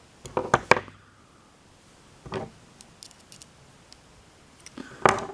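Metal clicks and clinks from hand tools and a car door handle assembly being handled: a quick run of clicks near the start, another about two seconds in, light ticks a second later, and a sharper clack near the end.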